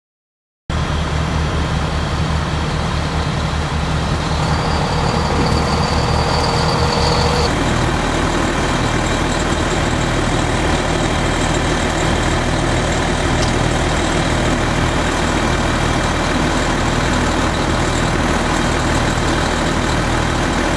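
Fire engine running steadily close by, a constant low engine rumble under a wide hiss, starting abruptly under a second in; a thin steady high tone sounds for about three seconds near the start.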